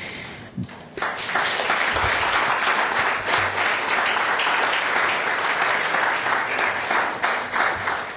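Audience applauding, many hands clapping at once, starting about a second in.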